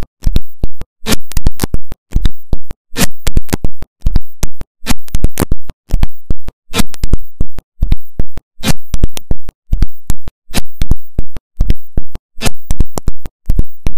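Music playback over an auditorium sound system glitching: loud, distorted stuttering bursts, each cut off by a sudden dropout to silence, repeating roughly once a second.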